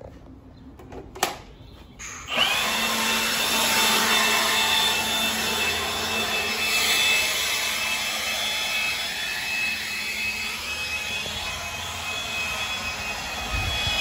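Cordless electric leaf blower switched on about two seconds in, running steadily: a rush of air with a high motor whine over it.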